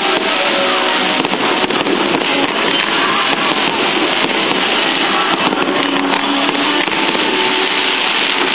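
Fireworks crackling and popping steadily over rock music playing through a stadium sound system.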